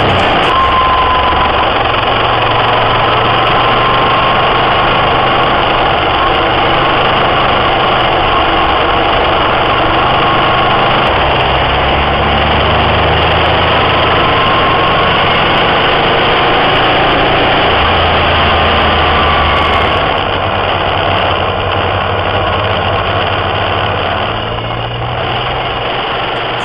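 Motorcycle engine running while riding, under a steady rush of wind noise. The engine's low note shifts in steps a few times, and the whole sound drops somewhat in level about three quarters of the way through.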